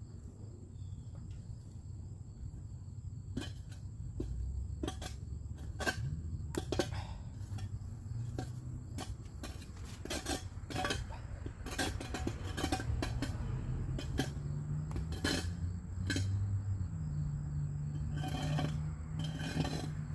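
Irregular sharp metallic clinks and knocks from hand tools at work on the rotted wood, a few each second from about three seconds in. Underneath runs a low engine-like hum that steps up in pitch.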